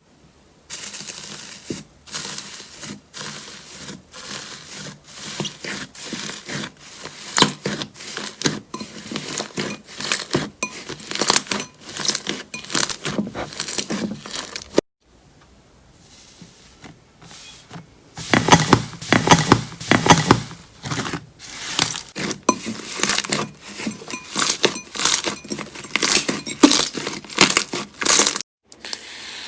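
Slime being worked by hand, giving dense runs of crackling pops and clicks. The crackling stops about halfway through and starts again a few seconds later.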